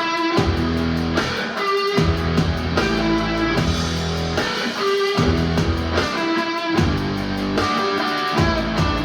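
Guitar-led music with a repeating chord pattern and a strong bass line, played back through a Mission 761i hi-fi loudspeaker.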